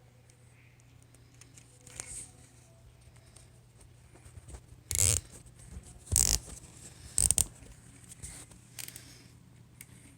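Plastic zip ties being ratcheted tight: three short rasping pulls about a second apart around the middle, with light handling clicks between.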